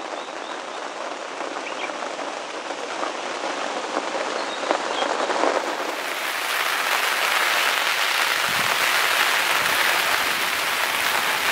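Steady rain falling, with scattered drops tapping close by; the rain becomes louder about halfway through.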